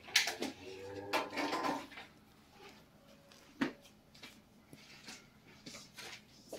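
Scattered knocks and clinks of tableware around a set dinner table: a sharp knock just after the start, another at about three and a half seconds, and a short pitched sound about a second in.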